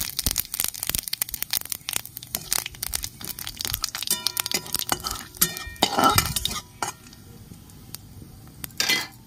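Whole cumin seeds crackling and popping in hot oil in an aluminium kadai, many quick pops that thin out after about seven seconds. A metal spatula scrapes and clinks against the pan about four to six seconds in.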